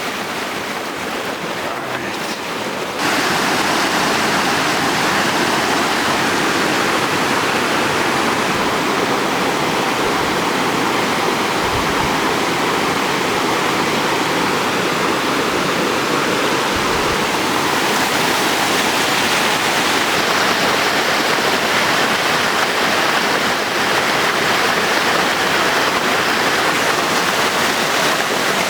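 Rushing water of a rocky mountain stream, a steady, loud rush that steps up suddenly about three seconds in.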